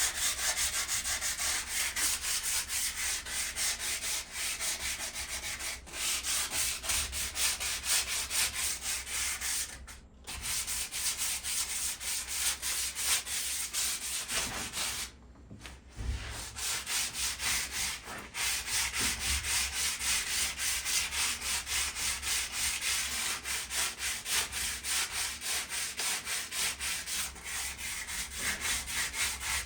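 Sandpaper scraping back and forth over the rusty metal edge of a patio table in quick, rhythmic strokes, taking off surface rust. It stops briefly twice.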